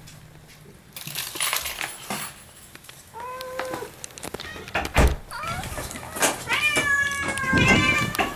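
Domestic cat meowing in greeting: a short meow about three seconds in, then a longer drawn-out meow near the end. A sharp thump about five seconds in and some rustling come in between.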